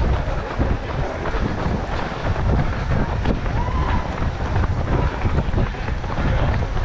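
Wind buffeting a GoPro action camera's microphone while a runner is running, a steady low rushing, with scattered light thuds of running footsteps.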